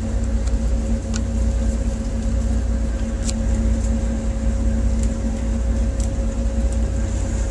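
A tugboat's diesel engine running steadily, heard on deck as a constant deep drone with a steady hum over it, and a few faint ticks.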